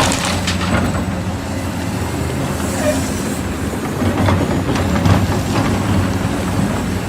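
Excavator's diesel engine running steadily, with scattered clanks and knocks from the machine working.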